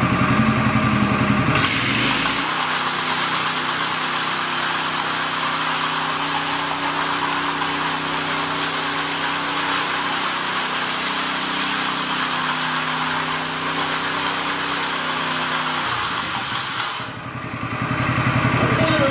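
Honda GX270 9 hp engine of a 46-inch power trowel, running at a low idle and then revved up about two seconds in to a steady high speed, held there, before being throttled back down to idle near the end.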